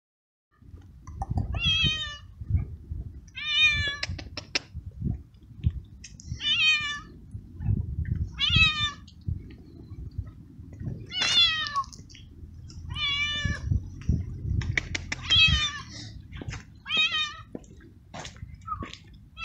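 A male tabby stray cat meowing loudly and over and over, about eight long meows roughly two seconds apart. By the uploader's account he is in heat, calling for a female, and also asking for food. Low thumps and rustling run underneath.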